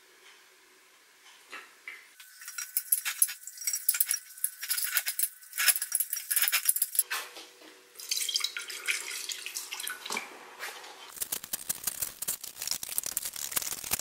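Metal clinking and rattling as the oil bath air filter's steel sump is handled, then liquid poured from a jug into the sump about eight seconds in and sloshed around by hand near the end.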